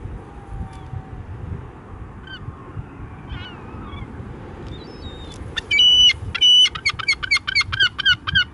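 Gulls calling: faint scattered cries at first, then about five and a half seconds in a close gull gives its loud long call, two long held notes followed by a fast run of short yelping cries, about five a second. A steady low rumble runs underneath.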